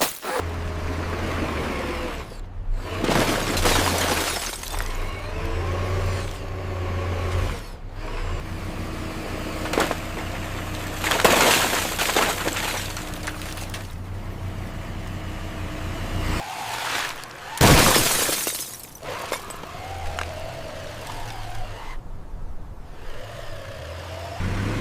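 Cars being smashed by heavy machinery: several loud crunching, shattering crashes, the loudest about eighteen seconds in, over a steady low engine drone.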